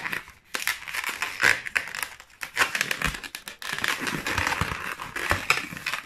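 Inflated latex twisting balloons of a finished balloon parrot rubbing against each other and against the hands as it is turned and adjusted, in an irregular run of squeaks and crackles.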